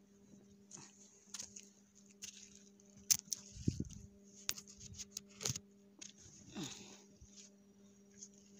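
Handling noise close to a phone's microphone: a run of sharp clicks and knocks with cloth rustling, and one dull thump about halfway through, as the phone is moved and clothes are handled next to it. A faint steady hum lies under it.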